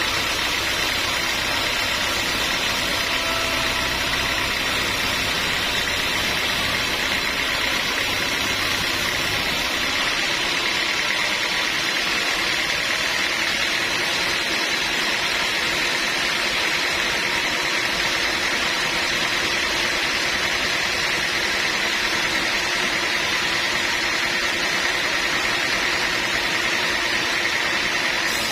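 Sawmill machinery running steadily with a constant noisy hiss; a low rumble underneath drops away about ten seconds in.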